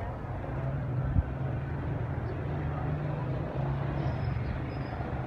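Steady rumble of motor traffic with a low engine hum. A single low thump comes about a second in.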